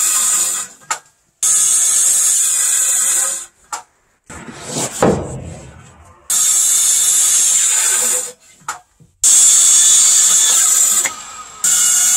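Handheld circular saw cutting repeatedly into a wooden timber: the saw's high whine starts and stops about five times in short runs of one to two seconds. A single loud knock comes in a gap about five seconds in.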